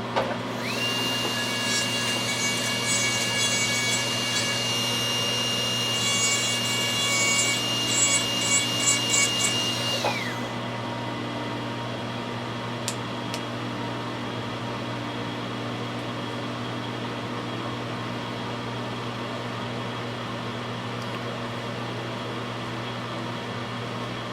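Dental lab rotary handpiece spinning up to a steady high whine, with its bur grinding the 3D-printed resin splint in short rasps in the second half, to take down the spot that keeps the back teeth from meeting. It stops about ten seconds in.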